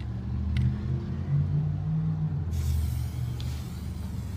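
Low engine rumble of a motor vehicle, its pitch wavering. About halfway through, an aerosol can of Plasti Dip starts spraying with a steady hiss.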